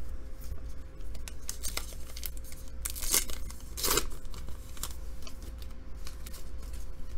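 A trading-card pack wrapper being torn open and the cards handled: a run of short crinkly rips and rustles, loudest about three and four seconds in.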